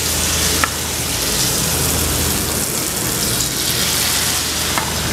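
Battered vegetable-stuffed tofu deep-frying in hot oil in a frying pan: a steady sizzle, with a couple of sharp pops.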